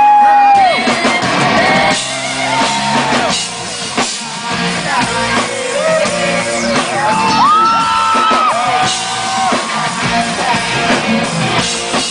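A crowd of fans screaming and whooping over loud pop music, many high voices rising, holding and falling at once.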